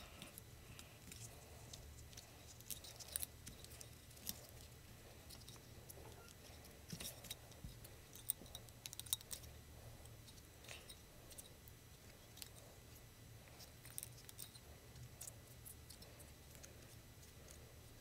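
Faint, scattered clicks and taps of hands handling a small FPV racing quadcopter, over a low steady hum.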